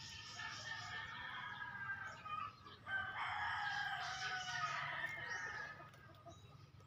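Gamefowl roosters crowing: one long crow fades out about two seconds in, then another long crow starts sharply about three seconds in and runs for over two seconds.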